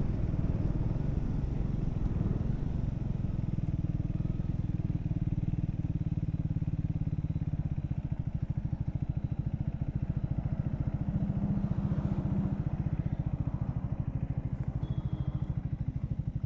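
Triumph Speed 400's single-cylinder engine running as the motorcycle rides, with wind noise; about halfway the wind drops and the engine settles to low revs, its firing pulses coming through as an even, rapid beat.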